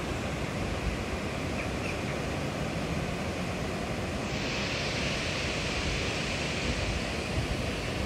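Steady rushing noise of river water pouring over the weir, turning hissier about four seconds in.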